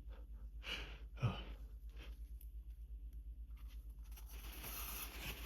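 Hitching, gasping breaths of someone on the edge of an allergy sneeze: a breathy gasp a little under a second in, then a sharper, louder catch in the throat just after. Breathy hiss builds again near the end.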